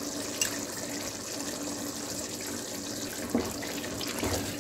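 Chicken and masala sizzling as they fry in a pot on a gas stove, a steady hiss with a few light clicks of the spoon.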